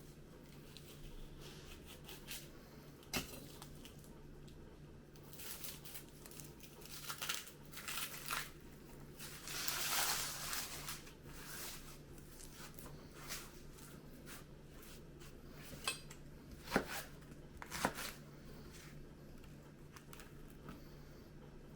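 Papery shallot skins crinkling and tearing as they are peeled off by hand, with a few sharp knife knocks on a cutting board, two of them close together near the end. A faint steady low hum sits underneath.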